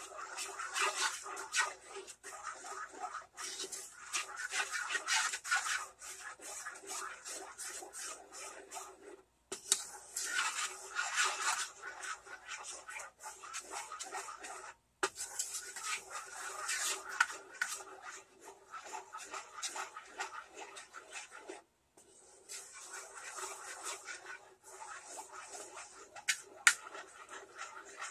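Wooden spoon stirring thick tomato-based barbecue sauce in a nonstick saucepan, scraping and rubbing against the pan's bottom and sides. The stirring goes in long runs, broken by brief pauses three times.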